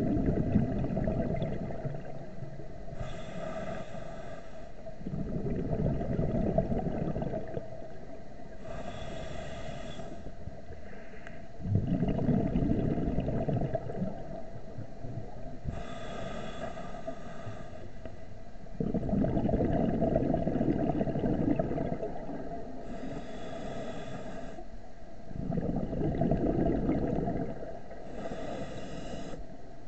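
Scuba diver breathing through a regulator underwater. Each breath is a short hissing inhale followed by a longer rumbling gush of exhaled bubbles, repeating about every six to seven seconds, five breaths in all.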